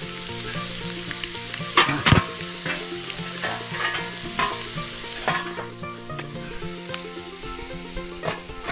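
Steady sizzling and hissing of food against hot stones in a pachamanca earth oven, with sharp knocks of stones being set down on the pile, the loudest about two seconds in.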